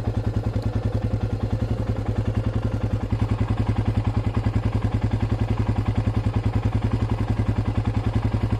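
Royal Enfield Himalayan's single-cylinder engine idling steadily, with an even beat of about eleven pulses a second.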